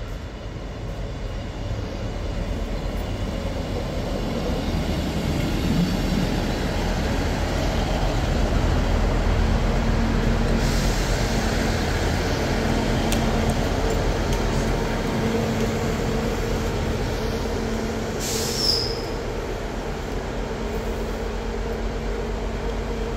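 Diesel multiple-unit train running through the station, its engine and wheel noise growing louder over the first several seconds and then holding steady with a low hum. There is a burst of hiss about halfway through, and a short hiss with a high squeal about three-quarters of the way in, typical of air brakes.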